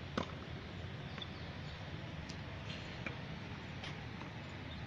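A tennis ball is struck once about a fifth of a second in, a single sharp pop. After it come only a few faint ticks over a steady low background rumble.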